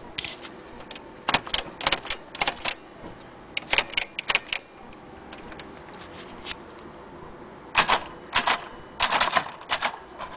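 Vintage Olympia typewriter being typed on: keys striking the platen in quick, irregular clacks, in three short runs with pauses between.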